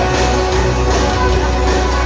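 Music playing over a ballpark's public-address loudspeakers, steady with strong bass.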